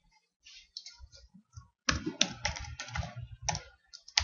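Typing on a computer keyboard: a quick run of key clicks, a password being entered, starting about two seconds in after a few lighter taps.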